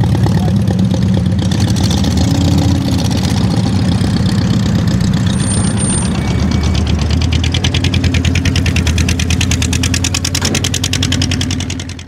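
Air-cooled Volkswagen Beetle flat-four engine idling, running steadily with an even, rapid pulse.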